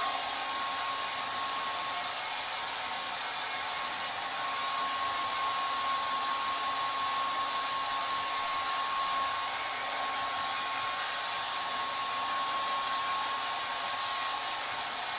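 Handheld hair dryer running steadily, blowing hot air onto long wet hair after a shower; its even rush of air carries a steady whine.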